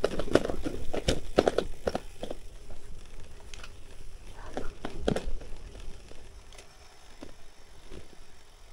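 Gravel bike rattling and knocking as it rides over bumps on a muddy dirt singletrack: a quick run of knocks in the first couple of seconds, a few more about five seconds in, then quieter rolling.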